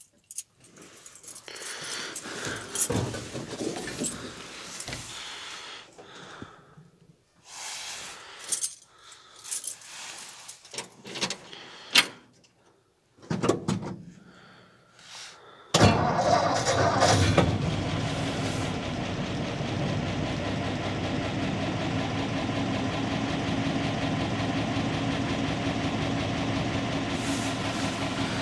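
Ford F-250 pickup's gasoline engine started about halfway through, catching suddenly and then idling steadily. Before it, scattered clicks and knocks from knobs and controls being handled in the cab.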